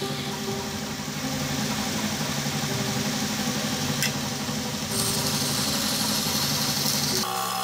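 Belt grinder motor running with a steady hum while a ZDP-189 yanagiba blade is ground against the abrasive belt; the grinding hiss is light at first and grows stronger from about five seconds in, then cuts off abruptly near the end.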